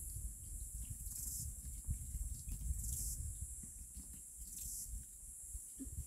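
Insects chirring steadily in a high band, swelling briefly every second or two, over a low rumble. A metal spoon faintly clinks against a plastic bowl of cooked apricots a few times.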